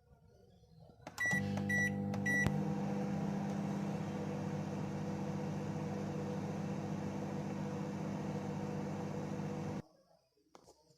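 Microwave oven keypad beeping three times, then the oven running with a steady low hum that cuts off abruptly near the end.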